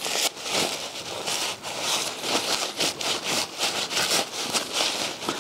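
Blue shop towel rubbing and crinkling over a starter motor's armature windings and commutator in quick repeated wiping strokes, cleaning off the debris and brake cleaner.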